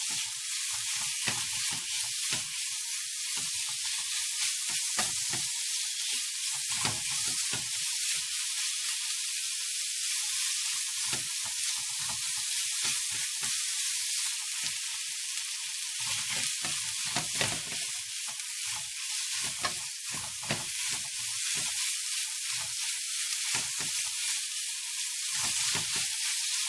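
Food sizzling steadily in a hot pan. Irregular low knocks and scrapes come from a utensil stirring it.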